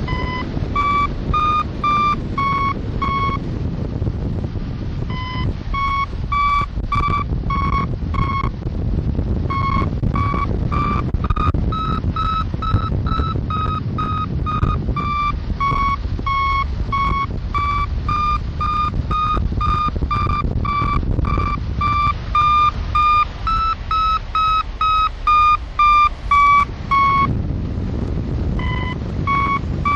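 Hang glider variometer beeping about two to three times a second, its pitch shifting up and down a little with the climb rate, with a few short pauses: the tone that signals the glider is climbing. Steady wind rush in the background.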